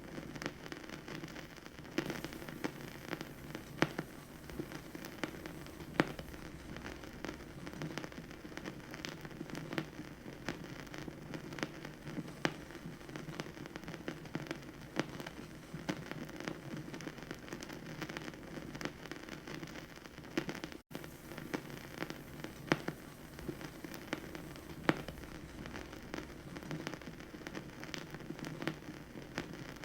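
Vinyl record surface noise: a steady low hiss and rumble with frequent, irregular crackles and pops from the stylus in the groove, and a momentary dropout about two-thirds of the way through.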